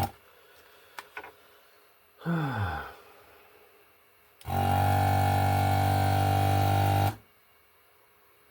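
The vacuum pump of a desoldering gun runs as a loud, steady buzz for about two and a half seconds while it sucks molten solder from the board's button holes. It switches on abruptly about halfway through and cuts off sharply. Before it come a couple of faint clicks and a short low sound that falls in pitch.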